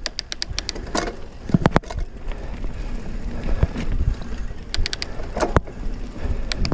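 Mountain bike rolling down a rough gravel trail: tyres crunching over stones under a steady low rumble, with clusters of sharp clicks and rattles from the bike over the bumps.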